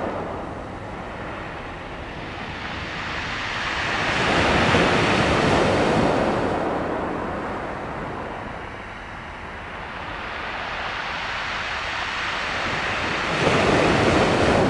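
Sea waves washing onto the shore. The surf swells slowly to a peak about five seconds in, eases off, then surges up again suddenly near the end.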